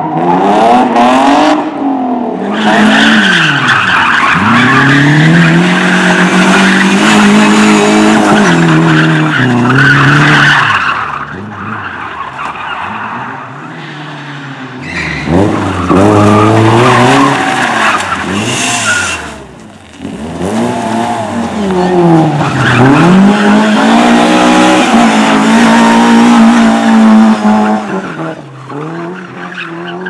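Rally cars' engines revving hard and dropping again and again as they accelerate and brake through a tight tyre-marked course, with tyre squeal and skidding on concrete.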